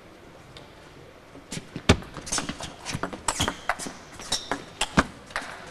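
Table tennis rally: the celluloid ball clicks sharply and irregularly off the bats and the table, starting about a second and a half in and going on to the end.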